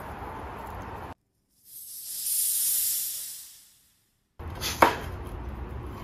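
A high hiss that swells up and fades away over about two seconds, with dead silence just before and after it. Then the outdoor background returns, and a sharp knock, the loudest sound, comes about five seconds in as a flatbread is cut on a wooden board.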